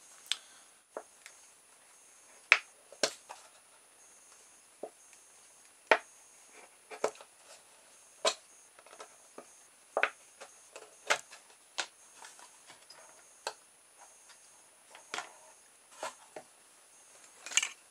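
Thin plastic bottle clicking and crackling irregularly as it is handled and worked, with holes made in it and copper tubing pushed through them.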